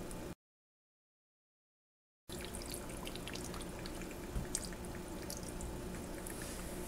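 Vinegar poured from a small glass bowl onto raw chicken pieces in a plastic container: faint trickling and dripping over a steady low hum, with two soft knocks about four and a half seconds in. The sound cuts out completely for about two seconds near the start.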